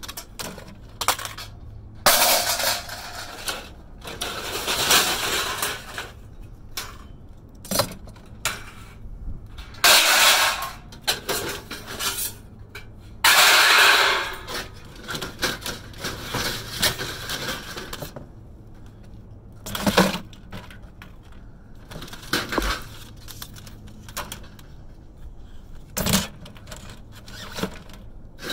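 Pieces of scrap metal clanking and clattering as they are tossed and sorted into a container, with several longer rattling crashes lasting about a second each.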